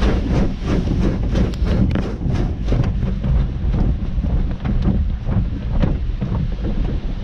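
Cloth wash strips slapping and dragging across a car's windshield and roof, heard from inside the cabin. A quick, irregular run of soft thumps, several a second, over a steady low rumble.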